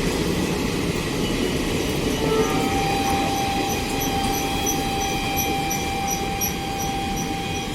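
Passenger train rolling past: a steady rumble of wheels on track, with a thin steady squeal starting a couple of seconds in and a regular high squeak repeating two to three times a second.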